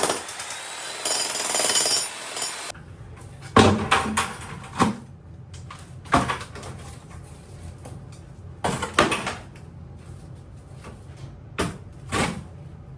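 A Makita HM1810 electric breaker hammer rattles against the concrete slab and stops right at the start, leaving a short noisy stretch. Then come about eight scattered sharp knocks and thuds, the loudest a few seconds in.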